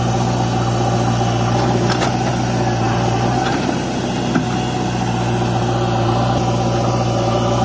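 Heavy diesel engine running steadily at low, even speed, with a short click about two seconds in.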